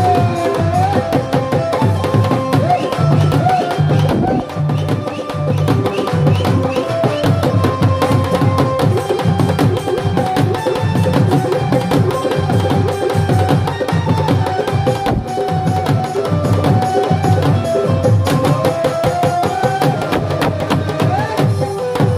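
Live Indian devotional music: a dholak drum plays a fast, steady rhythm under a held melody on an electronic keyboard.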